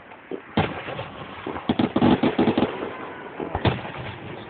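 Aerial fireworks bursting: a sharp bang, then a rapid cluster of crackling reports, then another single bang.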